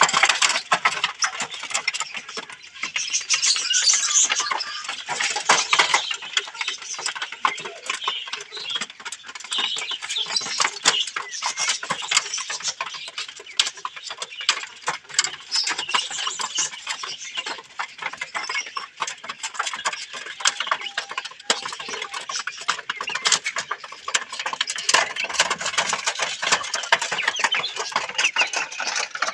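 Australorp chickens clucking and chattering, with many short clicks and ticks throughout.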